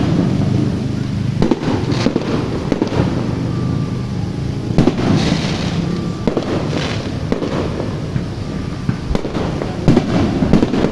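A box of aerial fireworks (a multi-shot cake) going off: sharp bangs every second or two at irregular spacing, with hissing bursts in between.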